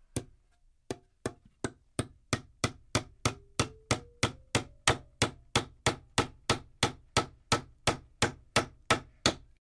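Hammer driving nails: a steady run of about two dozen sharp blows, nearly three a second after two slower opening strikes, with a faint ringing that rises in pitch in the middle of the run. The blows stop abruptly near the end.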